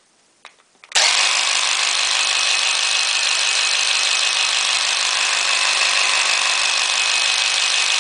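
Classic Army M132 airsoft microgun's electric motor spinning the barrel cluster. It starts suddenly about a second in and runs steadily at a constant pitch.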